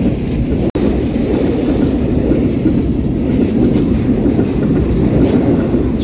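Freight train of open-top gondola wagons rolling past at close range on a steel truss bridge: a loud, steady low rumble of wheels on rails. The sound drops out for an instant just under a second in.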